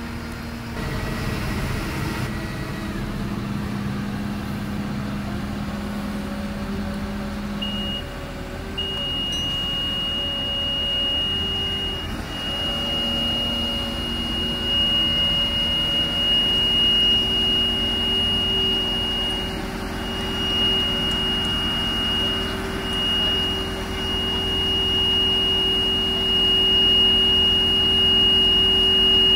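Magni HTH 16.10 telehandler's diesel engine running under load while its hydraulics lift a 16-tonne load of concrete blocks on the forks and raise the boom. About eight seconds in, a steady high-pitched beep tone starts and holds.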